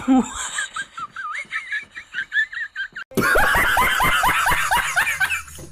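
High-pitched snickering laughter in quick bursts, then a louder run of laughter from about three seconds in that stops just before the end.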